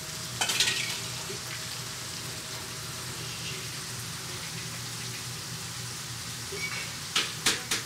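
Food frying in a sauté pan on a restaurant range, a steady sizzling hiss, with a low hum underneath. A few sharp clinks come near the end.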